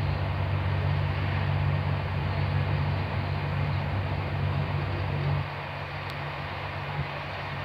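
Running noise inside a Corail passenger coach travelling at speed: a steady low rumble from the wheels and running gear, easing slightly about five and a half seconds in.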